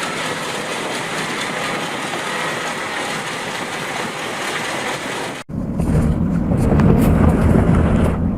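Heavy machinery running with a steady, hissy mechanical noise. About five and a half seconds in, a hard cut gives way to a louder, deep diesel engine rumble.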